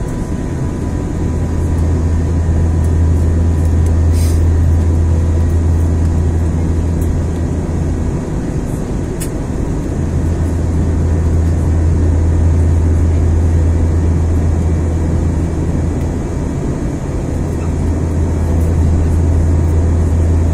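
Steady cabin noise inside an Airbus A320 in flight after takeoff: the jet engines' drone and rushing air with a strong low hum, which eases briefly twice.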